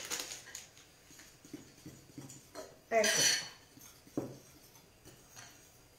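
A metal spoon clinks and scrapes against a ceramic bowl as flour, sugar and baking powder are stirred together by hand, in scattered small ticks. About three seconds in there is one short, louder vocal sound.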